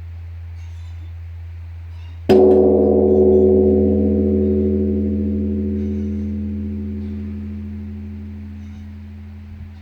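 Buddhist temple bell struck once, a little over two seconds in, then ringing long and slowly fading in several deep tones with a pulsing waver, over a steady low hum.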